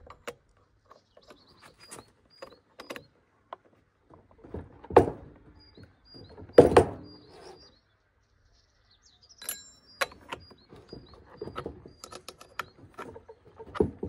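Metal clicks and clinks of a combination wrench working the bar nuts and chain tensioner of a Stihl MS 261 C chainsaw while a chain is being fitted, with two louder clunks about five and seven seconds in. Birds chirp faintly in the background.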